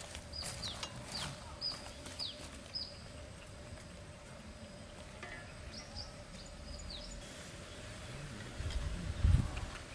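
A bird chirping: short, thin calls that fall in pitch, repeated about twice a second, then again more sparsely a few seconds later, over a faint steady hum. About nine seconds in there is a brief, louder low rumble, the loudest thing here.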